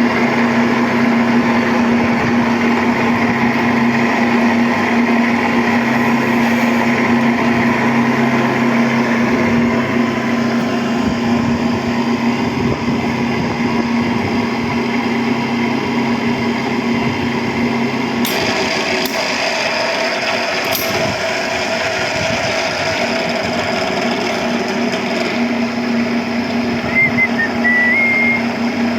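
Electric pipe-threading machine running steadily under load as its die cuts threads on an iron pipe. Its tone changes abruptly about two-thirds of the way through.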